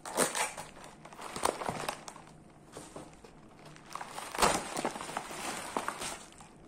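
Paper and moulded-pulp packing cut with a knife and torn apart over bubble wrap: rustling, crinkling tears in short bursts, the loudest about four and a half seconds in.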